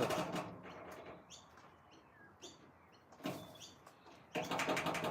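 Bird giving short, separate high chirps in a stop-start pattern. Near the end comes a louder, quick run of rapid clicking or chattering notes.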